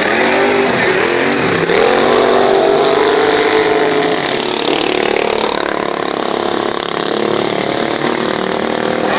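Several racing lawn mowers' engines running hard at once, their pitches rising and falling as the mowers accelerate and back off around a dirt track.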